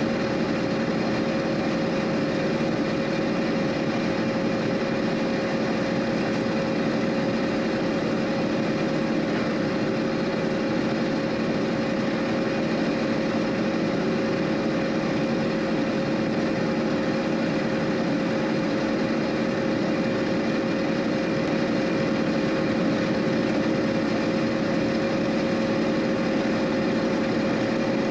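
John Deere combine running steadily while harvesting corn: an even engine and threshing-machinery drone with a steady hum, unchanging in pace.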